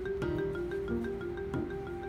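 Music with a quick, even run of short pitched notes over steady held tones and a light beat.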